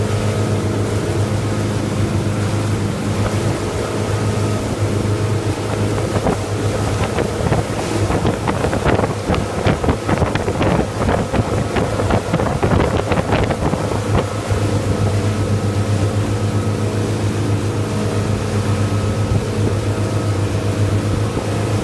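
Towing motorboat's engine running steadily at speed, a constant low hum, with wind on the microphone. From about 7 to 14 seconds in, a rougher stretch of rapid knocks and splashes.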